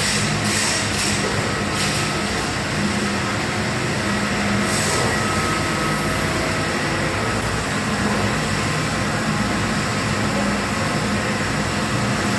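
Amada LCV-3015B2 CNC laser cutting system running: a steady mechanical drone with a low hum, and brief hisses about 2 and 5 seconds in.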